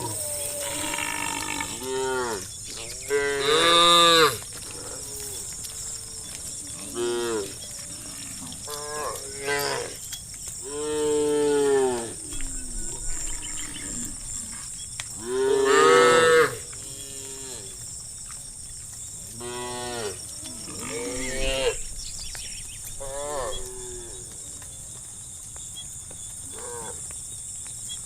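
Cows mooing again and again: about ten separate calls of a second or so each, the loudest about four seconds in and around the middle. A faint steady high-pitched whine runs underneath.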